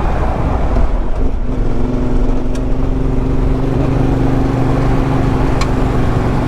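Dirt bike engine running with heavy low rumble, settling to steady revs about a second and a half in.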